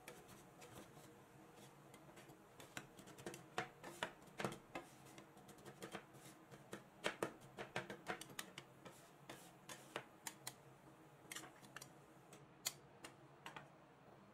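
Two metal spatulas chopping and tapping on a metal rolled-ice-cream freezing plate: a fast, irregular run of sharp clicks, dense in the middle and thinning out before stopping near the end.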